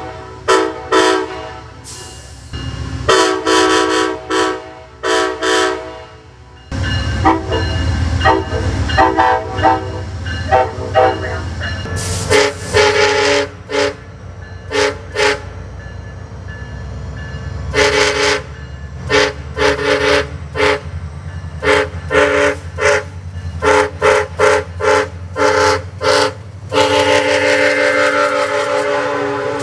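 Passenger diesel locomotive horns blowing chords. A few longer blasts come in the first six seconds, then a loud low engine rumble for several seconds. From about the middle on, a SunRail locomotive's horn gives a long run of short toots in quick succession.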